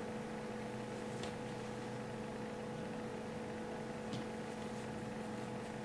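Steady electrical hum, with two faint clicks of metal double-pointed knitting needles, about a second in and again about four seconds in.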